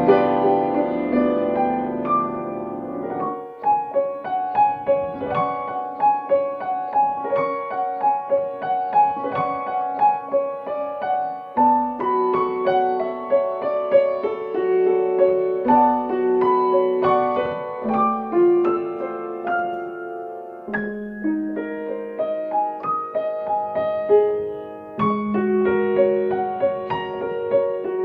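Solo piano played with both hands: a flowing melody of single notes over broken chords, with fresh lower chords struck every few seconds.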